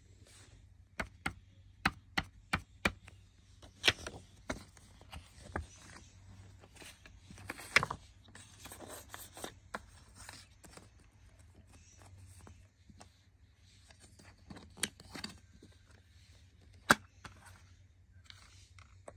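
Plastic CD jewel case being handled and closed: sharp clicks and taps throughout, the loudest about eight seconds in and near the end. Soft rustling of the paper booklet comes in between.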